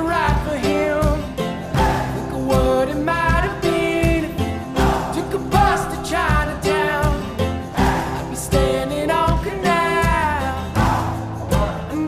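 Background music: an acoustic folk-pop song with guitar, a steady beat and a singing voice.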